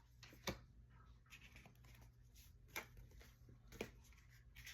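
Near silence with a low steady hum and a few faint clicks and light rustles of tarot cards being handled.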